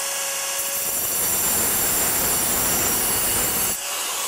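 Angle grinder with a diamond blade scoring a line into a patio paver: a loud, steady, harsh grinding. About three and a half seconds in, the blade lifts out of the stone and the motor runs on freely.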